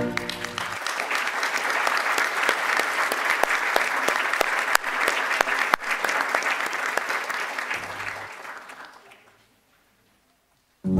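Audience applause, steady clapping that fades away about nine seconds in and stops.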